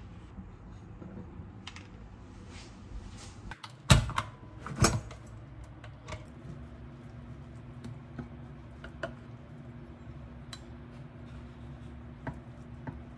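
Kitchen handling sounds: light clicks and knocks of utensils and dishes, with two sharp, loud knocks about four and five seconds in. A faint steady hum sets in about six seconds in.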